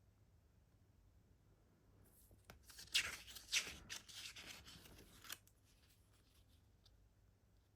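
Hands handling a CD and its packaging: a few seconds of rustling and scraping, with a couple of sharper clicks in the middle.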